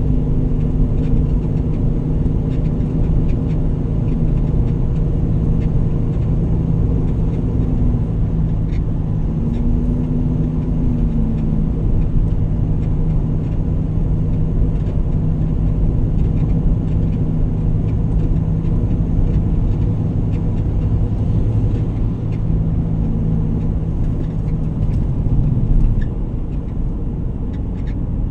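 Motor vehicle's engine and road noise, a steady low hum while driving along; the engine note changes and drops a little near the end.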